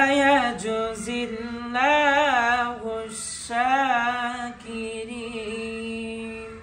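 A man's voice reciting the Quran in melodic tajweed style, drawing out long ornamented phrases with a wavering pitch, three of them, then holding one long steady note that stops near the end.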